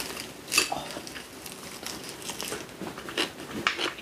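Crisp crunching and crackling of food being bitten and chewed, a quick run of short crackles throughout.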